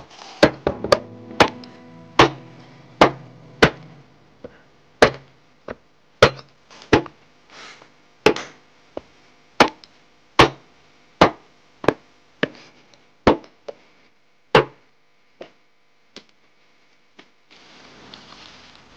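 Cleaver chopping a whole rooster into pieces on a wooden cutting board: sharp chops through meat and bone, about one to two a second, thinning out after about fifteen seconds. Near the end, running tap water splashes onto the chicken pieces in a steel basin.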